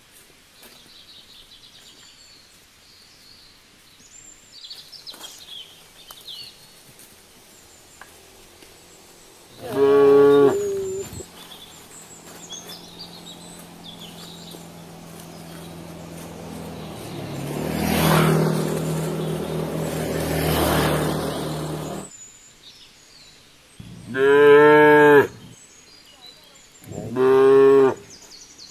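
Cattle mooing: three loud, deep moos, one about ten seconds in and two close together near the end. Between them a motorbike engine's hum builds, swells and passes, cutting off suddenly.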